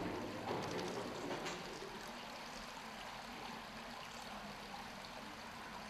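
Steady rush of running water, with a few faint clicks in the first second and a half.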